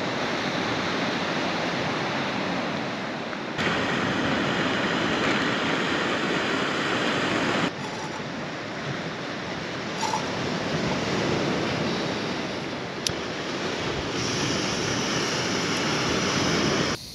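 Surf washing onto a rocky shore: a steady rush of waves that shifts abruptly in level a few times.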